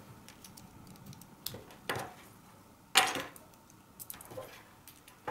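A few small clicks and knocks of crocodile-clip and banana-plug leads and a lamp holder being handled and clipped together on a tabletop, the sharpest knock about three seconds in.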